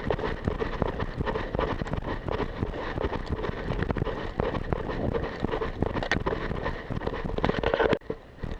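Rapid footsteps of a person running, with clothing and gear rustling and wind buffeting a body-worn camera's microphone. It cuts off abruptly about eight seconds in.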